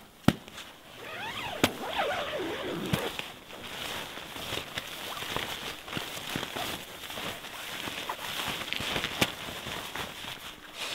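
Nylon fabric of a Pomoly LEO 2 hot tent's door rustling as it is handled and opened. There are a few sharp clicks, and some brief sliding scrapes about two seconds in.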